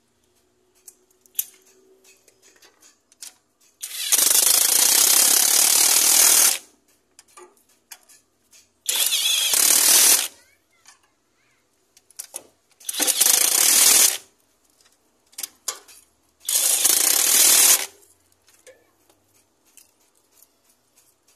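Pneumatic impact wrench run in four loud bursts, the first about two and a half seconds long and the rest about a second or so each, driving bolts home while a Proton Persona gearbox is being installed.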